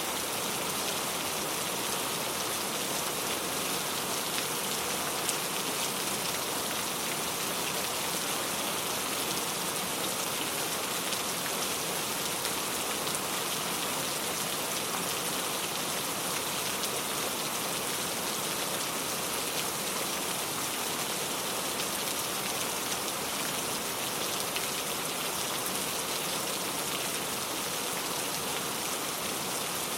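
Steady rainfall, a dense even hiss of drops pattering on a surface.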